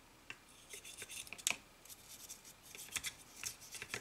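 Small brush scrubbing plastic model-kit parts in soapy water: a run of quick, irregular scratchy strokes of bristles on plastic, the washing of the parts before priming and painting.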